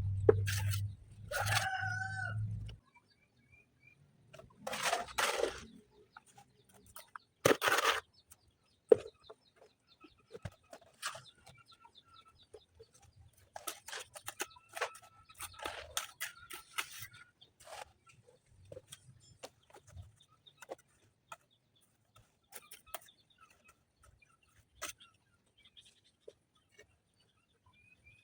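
A rooster crowing near the start, a wavering call with several overtones. After it come louder noisy bursts and many scattered short clicks and knocks.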